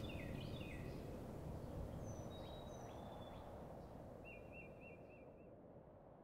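Faint bird chirps, dropping in pitch, then a short rapid trill, over a low steady rushing ambience, the whole fading out.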